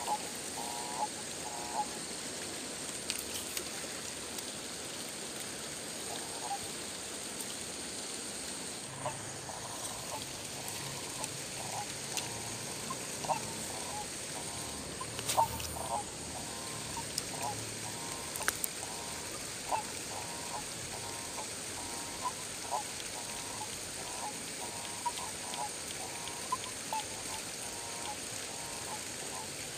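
A frog calling over and over in short croaks, about one and a half a second, over a steady high hiss. A few sharp clicks come around the middle.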